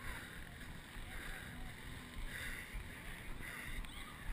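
Muffled sounds of a person running on a dirt trail, picked up by a chest-mounted GoPro inside its waterproof housing: a swish that repeats about once a second over low, irregular thuds and rubbing.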